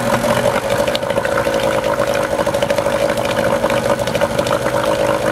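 A 1991 Evinrude 3 hp twin-cylinder two-stroke outboard running steadily just after it catches, on a cold start after ten years in storage.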